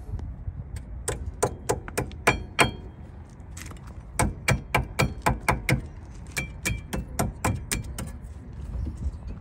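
Runs of quick, sharp metallic taps, about three or four a second, some with a brief ring: a steel brake-pad retaining clip being pressed and tapped into its seat on the rear caliper bracket of a Hyundai Elantra.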